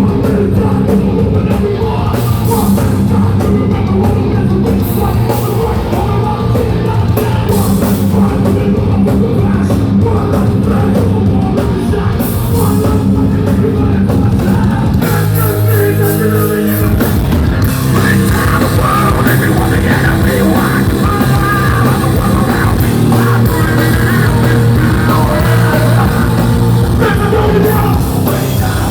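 Hardcore band playing live: loud distorted guitars, bass and drums with vocals. About halfway through, the drums drop out for a couple of seconds while the guitars ring on. Then the full band comes back in with cymbals crashing.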